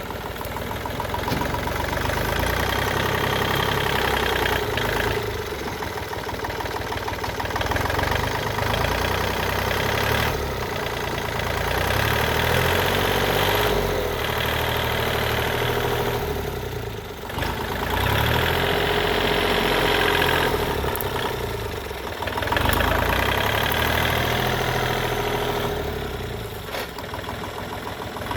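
Diesel engine of a working machine running continuously, its level rising and easing every few seconds as the load changes.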